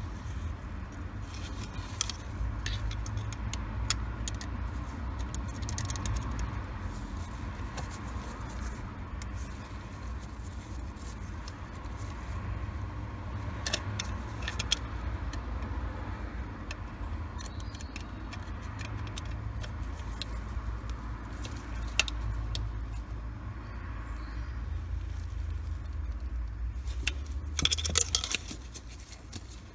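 Small metal clicks, taps and scrapes of a T25 Torx screwdriver being worked onto the captive screw of a crankshaft position sensor, over a low steady rumble, with a quick flurry of loud clinks near the end.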